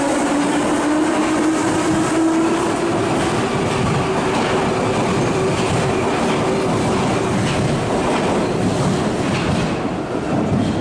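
Prague metro train pulling out of the station and speeding up: a motor whine rising slowly in pitch over the rumble and clatter of wheels on the rails. The noise eases slightly near the end as the last car goes past.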